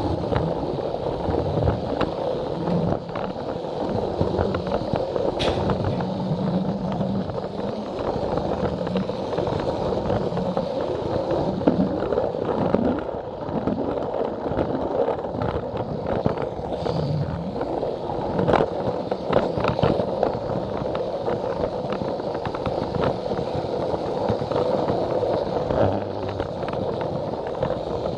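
Plarail battery toy train running along plastic track, heard from the camera riding on it: a steady whirring rattle of motor, gears and wheels, with frequent small clicks as it crosses the rail joints.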